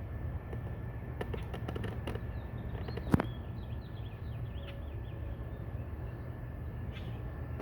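A bird singing a quick run of chirps for a couple of seconds over a steady low rumble, with one sharp knock about three seconds in.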